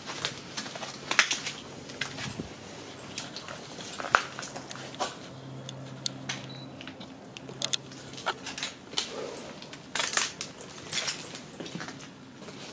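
Footsteps crunching and scuffing over debris on a littered concrete floor, as irregular crunches and clicks.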